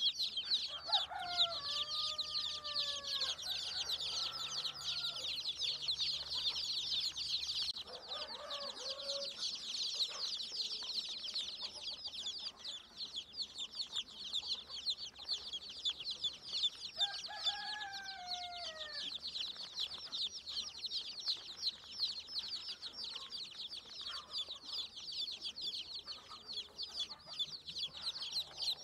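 A brood of chicks peeping continuously in a dense, high chorus of rapid chirps. Over it a rooster crows near the start and again about 17 seconds in, with a shorter adult chicken call about 8 seconds in.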